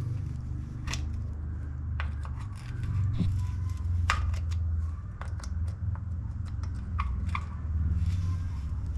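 Scattered small clicks and scrapes of bicycle bottom-bracket parts and hand tools being worked by hand, over a steady low hum.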